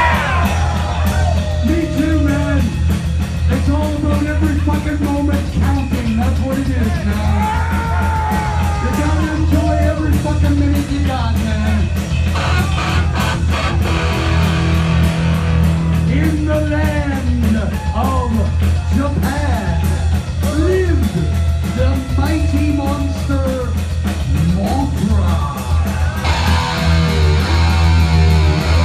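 Heavy metal band playing live, with distorted electric guitar, bass and drums under a lead vocal.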